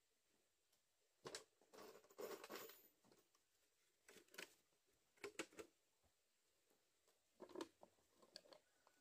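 Faint, intermittent rustling and scraping handling noises in several short bursts, against near-silent background.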